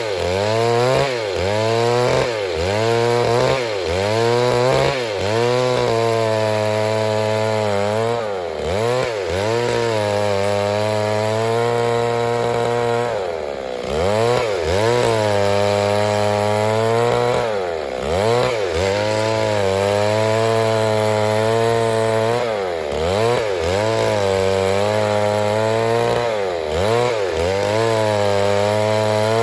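Stihl MS 382 two-stroke chainsaw running at high revs, its pitch dropping and climbing back again about once a second at first, then holding high for several seconds between dips.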